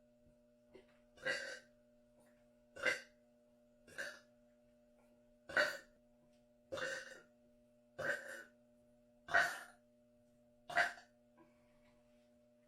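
A person burping in a rapid series: eight short burps, one roughly every second and a half.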